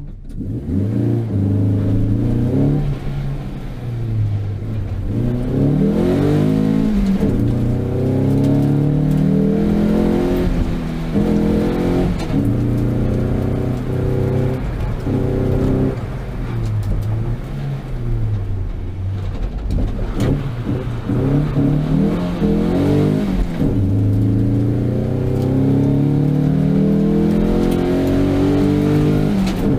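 Ford Sierra's engine heard from inside the car, revving up and dropping back again and again as the car accelerates, changes gear and slows on a slalom run.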